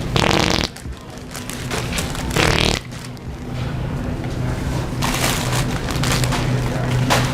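Wet fart sound effects: two loud half-second spluttering blasts, one at the start and one about two seconds later, then fainter ones near the end, over a steady low hum.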